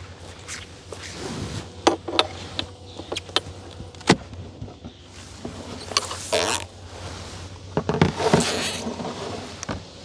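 Wooden beehive parts being handled: sharp wood-on-wood knocks about two and four seconds in, then scraping and rustling as the inner cover is lifted off and a box is set on top of the hive.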